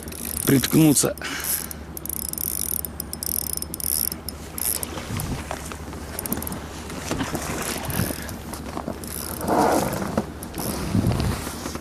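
Spinning reel working under load from a large hooked lenok: a rapid, steady mechanical ratcheting of reel gear and drag as line is fought in and out.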